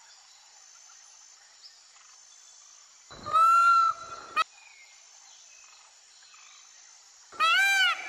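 A peacock calls: one loud, high call about three seconds in, then near the end a series of loud calls begins, repeating about every half second. A faint steady outdoor background runs underneath.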